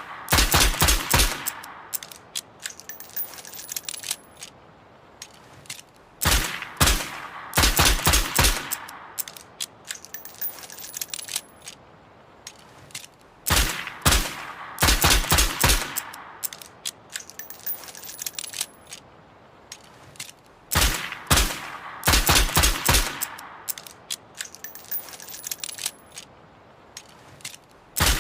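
Revolver gunfire sound effect: four times, a shot or two followed by a quick string of about six shots, each volley trailing into quieter metallic clicking and a high tinkling jingle before the next begins about seven seconds later.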